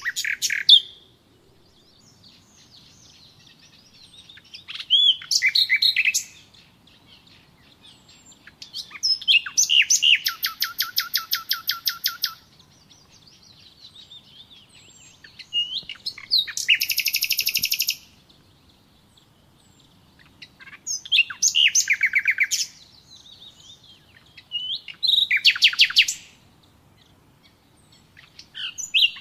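A bird singing in loud phrases of fast repeated trilled notes. The phrases come about every four to five seconds, seven times, and the longest lasts about three seconds. Softer chirps fill the gaps between them.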